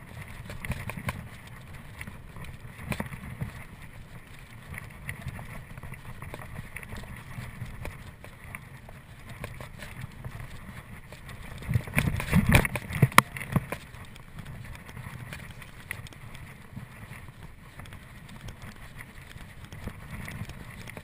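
Mountain bike ridden along a dirt trail: the tyres and frame rattle with small clicks and knocks, and there is a louder stretch of clattering about twelve seconds in.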